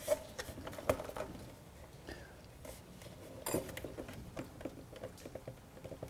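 Light, irregular clicks, taps and scraping of plastic parts being handled: a hose fitting and the plastic lower air box of a Honda Civic's intake being worked loose by hand.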